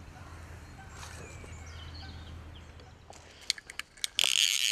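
Faint riverside ambience with a few thin bird calls. Near the end come several sharp clicks, then a loud, steady ratcheting buzz starts abruptly: a fly reel's click check as line is run off or wound.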